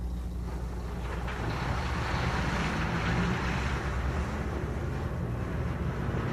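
A convoy of military trucks driving past, a steady low engine rumble with road hiss that swells slightly after a couple of seconds.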